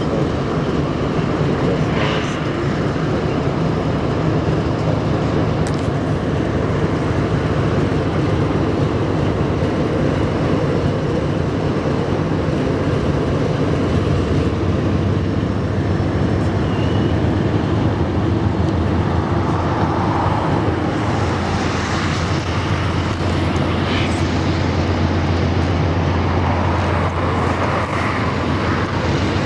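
Steady low engine rumble with a constant hum, mixed with a wide noise of moving vehicles or rolling stock, and a few faint clicks.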